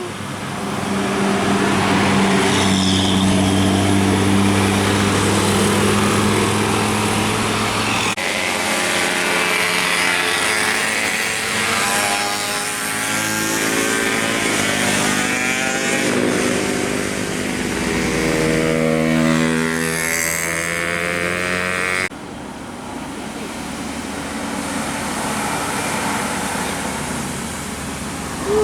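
Tour bus 'basuri' telolet horn playing a melody in held notes that step from pitch to pitch as buses pass, over road and engine noise. The sound changes abruptly twice, at about 8 and 22 seconds in.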